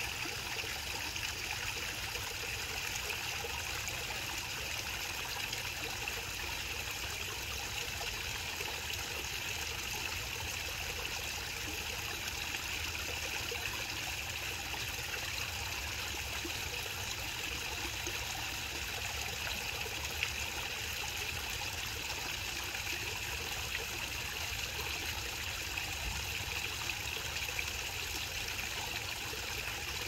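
Small garden waterfall spilling from a stone ledge into a rock-edged pond: a steady trickle and splash of falling water.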